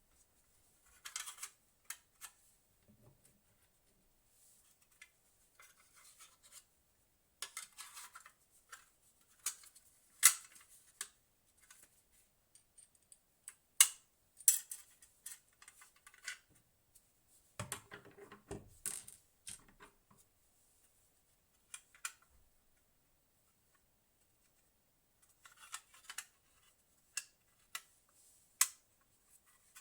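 Hands handling small hard parts, with scattered clicks, short scrapes and rubbing and a few sharper clicks, with pauses between them, as of small computer parts or their packaging being worked on.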